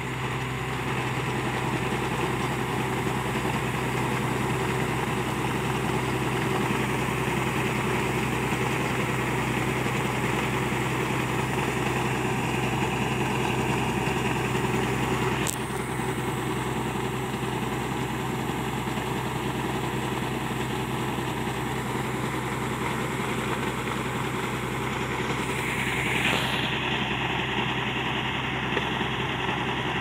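Kubota combine harvester's diesel engine running steadily, with its machinery working while rice grain is unloaded through the auger. A single sharp click about halfway, after which the sound is slightly quieter.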